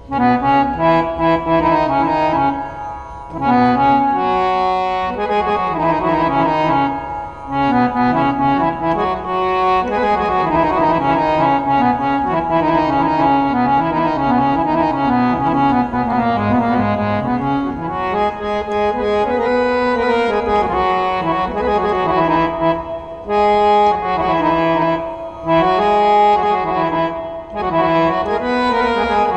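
Harmonium playing a Carnatic melody in raga Abheri, reedy notes moving through quick stepwise phrases with a few brief pauses.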